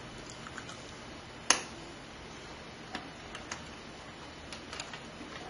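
Scattered small clicks and taps of hands fitting parts inside a desktop PC case, with one sharp, loud click about a second and a half in.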